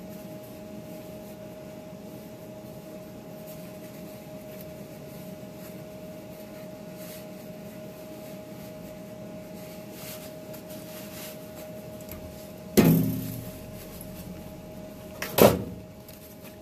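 Steady hum of a MIG welder left switched on, its cooling fan running. Near the end come two short, sharp knocks a couple of seconds apart.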